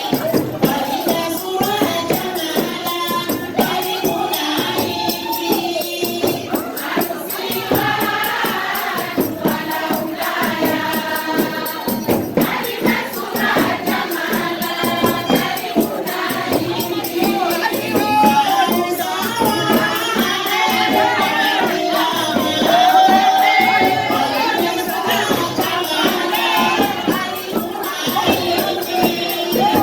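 Several voices singing together over a tambourine-like jingle drum keeping the beat, with crowd voices mixed in.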